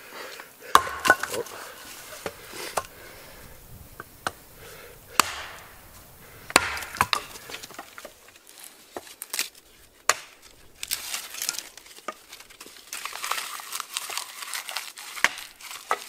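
Hatchet blows splitting kindling on a wooden stump: a string of sharp, irregular knocks as the blade strikes and splits the wood. In the second half, lighter clicks and crackling from sticks and bark being handled.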